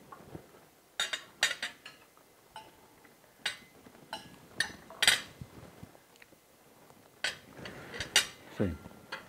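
Metal spoons clinking and scraping against china dinner plates and serving dishes during a meal: a scattered series of sharp clinks at irregular intervals, some ringing briefly.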